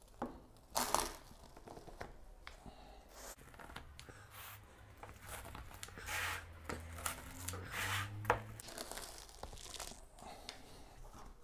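A slice being cut from a baked pizza: the crust crunching and tearing in a few short, scratchy bursts.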